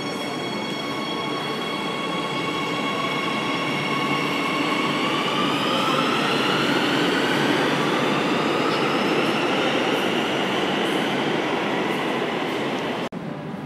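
Madrid Metro 8000-series electric train pulling out of an underground station: a whine from its traction motors rises in pitch as it gathers speed, over the rumble of its wheels on the track, then levels off and eases as the train goes into the tunnel. The sound breaks off suddenly near the end.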